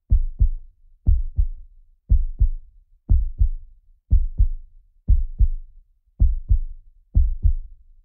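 Heartbeat sound effect: low lub-dub double thumps repeating steadily about once a second, roughly 60 beats a minute.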